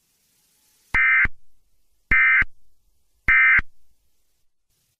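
Emergency Alert System SAME end-of-message code: three short data-tone bursts about a second apart, each about a third of a second long, marking the end of the weather radio tornado warning.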